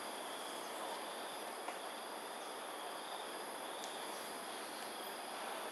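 A chorus of crickets or similar insects chirring steadily in several unbroken high-pitched tones, with a couple of faint ticks.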